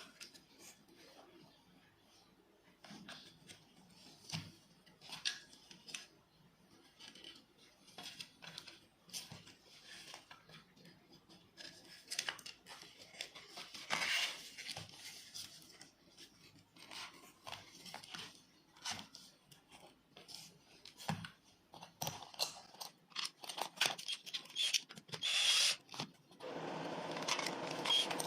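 Scattered clicks, taps and scrapes of small plastic and metal parts of an electric palm sander being handled during repair. A denser scraping rustle comes near the end.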